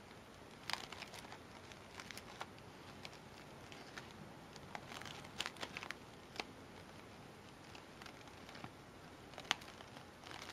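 Faint rustling and scattered small clicks from sheer fabric flower petals and wire stems being handled as one stem is wrapped tightly around the other.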